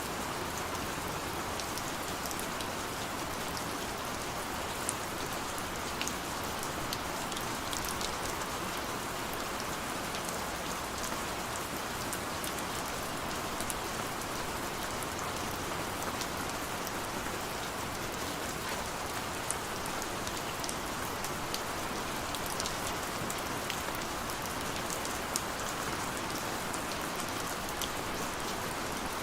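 Steady rain, an even hiss with scattered sharp drop ticks throughout.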